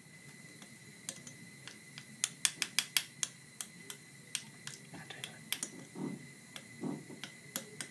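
Metal spatula clinking and scraping against a small glass dish and a glass boiling tube as benzoic acid crystals are spooned across. It makes a run of sharp, light clinks that starts about a second in and comes quickest two to three seconds in.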